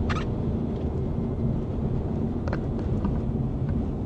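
Loud steady low rumble of a car driving fast down a runway, heard from inside the cabin: engine, tyre and wind noise together, with a few faint clicks.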